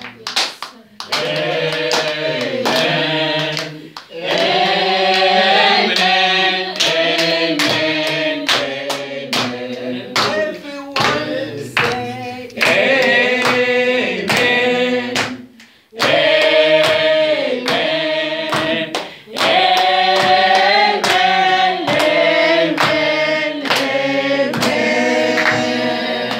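A small church congregation singing a worship song together, keeping time with steady hand-clapping. The singing comes in phrases with short breaks between them.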